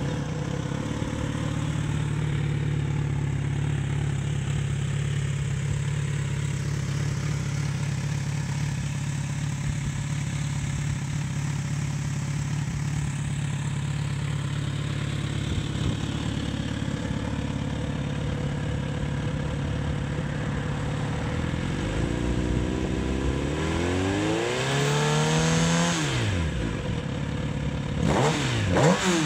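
Kawasaki Z900RS inline-four running through a K-Factory CSR aftermarket exhaust, idling steadily for about twenty seconds. It is then blipped a few times, the revs rising and falling, with one sharp rev near the end.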